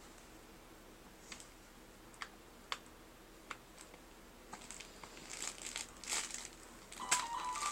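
Light crinkling and a scattered series of sharp clicks, growing busier about halfway through. Near the end a light-up Winnie the Pooh baby toy starts playing a simple electronic tune.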